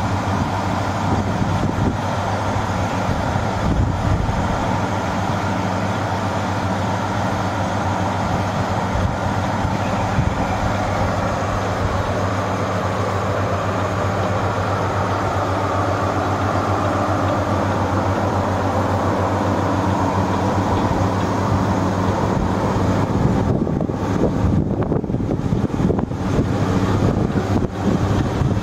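Steady machine hum with a rushing noise over it. The upper hiss drops out briefly several times near the end.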